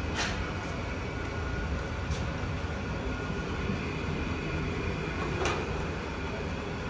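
Steady low rumble with three brief swishing knocks, near the start, about two seconds in and again after five seconds, as a cloth is rubbed around the rims of large metal cooking pots.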